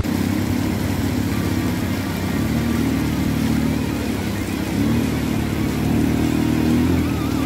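ATV engine running, its revs rising and falling unevenly, under a steady hiss of noise.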